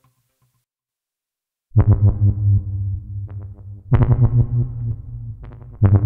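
Korg Opsix Native FM software synthesizer playing a preset: silent for about the first second and a half, then a low, rapidly pulsing synth pattern that sounds a new bright attack about every two seconds.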